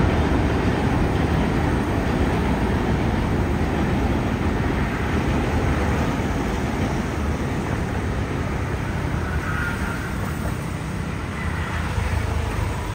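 Duronto Express passenger coaches rumbling steadily across a steel girder railway bridge, the noise slowly easing off as the train passes.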